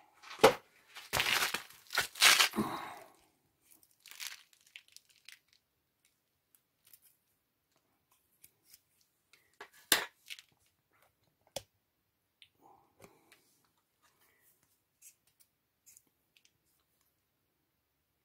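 Hands handling thin steel shims and a small oil pump thrust plug: several loud bursts of handling noise for about three seconds, then scattered faint clicks and two sharper metallic clicks near the middle.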